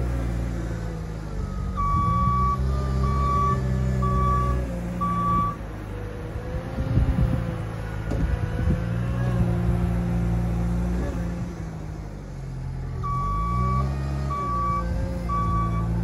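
JCB 409 wheel loader's diesel engine running and changing revs as it manoeuvres, with its reversing alarm beeping in two spells of about four beeps, near the start and again near the end. A few clunks about halfway through.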